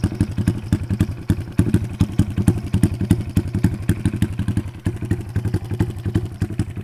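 Four-stroke motorcycle engine idling steadily just after starting, an even, rapid run of firing beats. It runs now that compression, spark and fuel are all in order.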